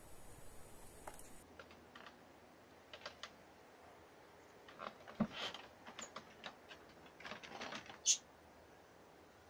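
Light, scattered clicks and rustles of hands handling wool yarn on a vertical carpet loom, coming at irregular intervals. One short, high-pitched squeak about eight seconds in is the loudest sound.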